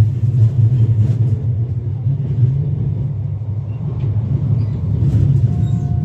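Steady low rumble of a car's engine and road noise heard from inside the cabin while driving. A faint steady tone joins in near the end.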